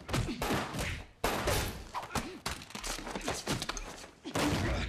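A scuffle: a quick jumble of thumps, knocks and scuffling from bodies hitting each other and the furniture, mixed with short voice sounds.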